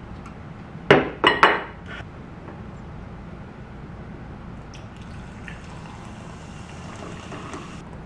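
Three sharp clinks about a second in, then sparkling water poured from a can into a glass, hissing and fizzing for about three seconds near the end.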